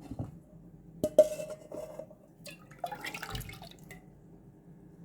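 Kitchen handling sounds with liquid: a clink with a short ringing tone about a second in, then clatter and a dull knock around three seconds in.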